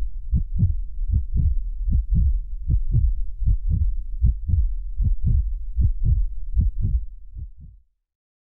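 A steady rhythm of deep, muffled thumps, about three to four a second, fading out in the last second and then stopping.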